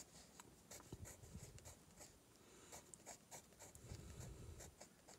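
Faint scratching of a pencil writing block letters on sketchbook paper, a run of short, quick strokes.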